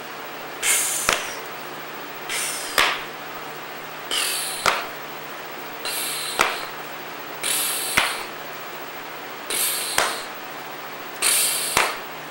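Shotgun shells tossed spinning, seven times at an even pace: each a short swish that ends in a sharp click.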